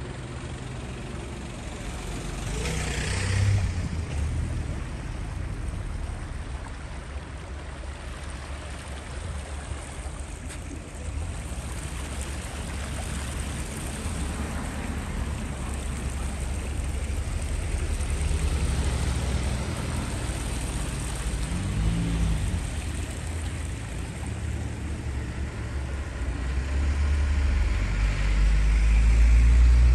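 Outdoor traffic ambience: a steady low rumble with vehicles going by, one swelling past about three seconds in and a louder rumble building near the end.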